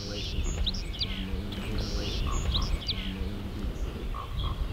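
Background music: a short phrase that repeats about every two seconds, with high chirp-like notes over a steady low bass.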